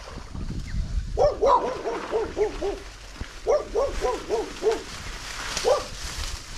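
A dog barking in quick runs of short yaps, about five a second: one run of about eight, a pause, a run of about seven, then a single bark near the end.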